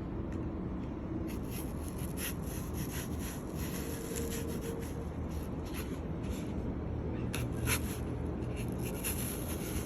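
Small knife cutting and scraping into an apple: soft scattered clicks and scrapes over a steady background hiss.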